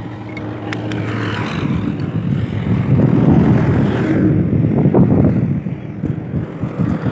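A steady engine hum with a low drone, growing louder about three seconds in and easing off again after about five seconds.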